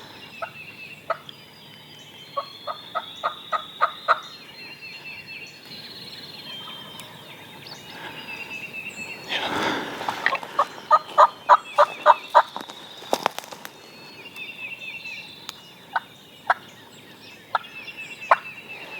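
Eastern wild turkeys: a gobble about nine seconds in, with runs of quick, sharp yelps before and after it and a few single yelps near the end. Small songbirds chirp faintly in the background.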